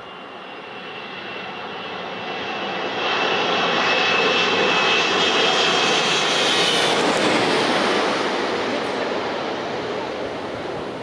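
Twin-engine jet airliner passing low overhead on its landing approach. The engine whine and rushing noise swell over a few seconds, stay loud through the middle, then fade, and the whine drops in pitch as the plane passes.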